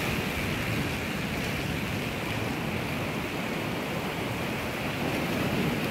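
Steady rush of surf breaking and washing up a sandy beach.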